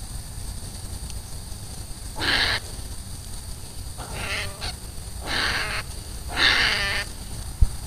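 European hedgehog screaming in distress as a European badger bites into it: four shrill cries about a second apart over a low steady rumble, with a sharp click near the end.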